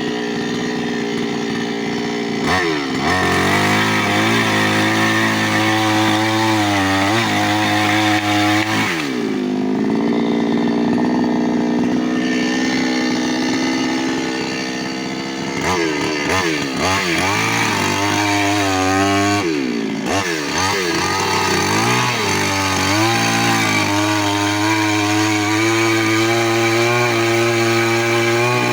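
New West 598X two-stroke chainsaw running at high revs. Its engine pitch dips and climbs back several times as the throttle and load change.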